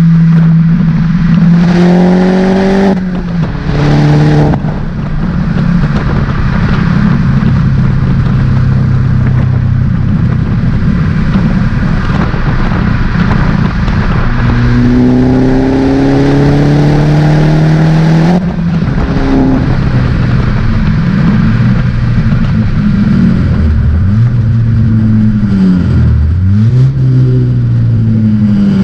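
Opel Corsa OPC's turbocharged 1.6-litre four-cylinder, fitted with an aftermarket downpipe, pulling hard through the gears. The engine note rises sharply about two seconds in and again for several seconds past the middle, each pull ending in a sudden drop at the gear change, with steady running between. Near the end the note falls and rises again several times.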